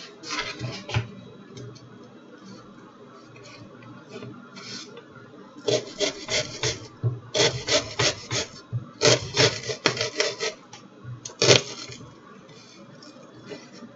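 Knife chopping a red onion: a few light strokes at first, then quick runs of sharp cutting strokes from a little before halfway, with one loud stroke near the end.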